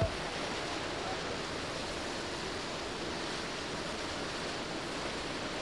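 Steady, even rushing noise of wind and sea heard at sea, with no distinct events.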